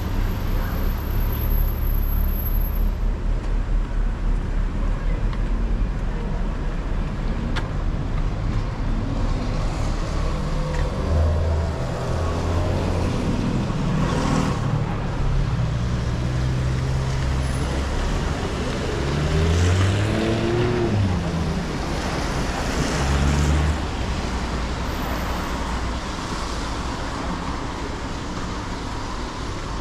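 Street traffic: motor vehicles running and passing, with a steady rush of road noise. About two-thirds of the way through, an engine's pitch rises and falls as a vehicle pulls away.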